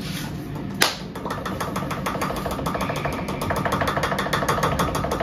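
A sharp click, then a rapid, even mechanical rattle of about nine ticks a second that runs for several seconds.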